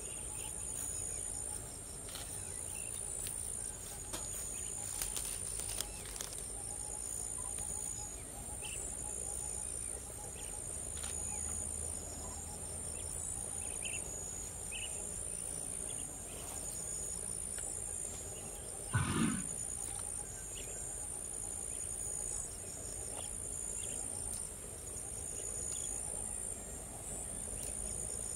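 Steady high-pitched insect chorus, with one short, loud call from an Asian elephant about two-thirds of the way through, lasting about half a second.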